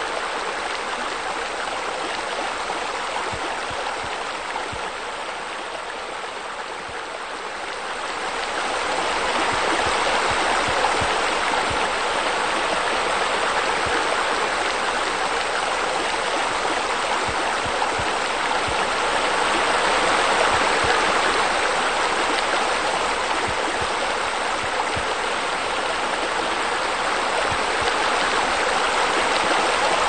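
Steady rush of running, splashing water, getting louder about eight seconds in.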